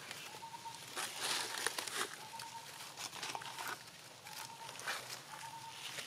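Dry fallen leaves rustling and crackling in irregular bursts as a long-tailed macaque walks and rummages through the leaf litter. A faint short high note recurs every second or two behind it.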